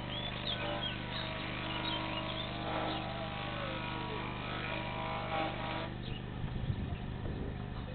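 A steady engine drone that cuts off abruptly about six seconds in, over a constant low hum, with a few faint bird chirps in the first seconds.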